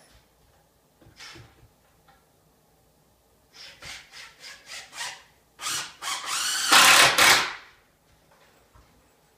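Power drill driving screws into framing lumber. It runs in a few short trigger bursts, then in a longer, louder run about six to eight seconds in, with the motor's pitch shifting under load.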